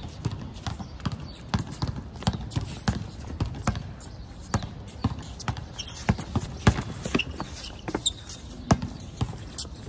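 Basketball bouncing on an outdoor concrete court, with the scuffs of players' sneakers: a string of irregular sharp thuds, the loudest a few seconds in.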